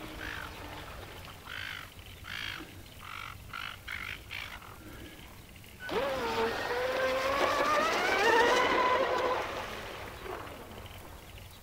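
A run of short calls from birds on the water over the first few seconds. About six seconds in, a radio-controlled boat's motor starts with a whine that rises slowly in pitch for about four seconds, then fades away.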